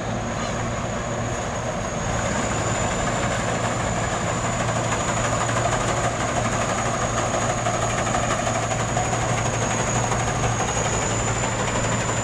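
Heavy diesel farm machinery running steadily, with a thin high whine above the engine noise; it gets a little louder about two seconds in.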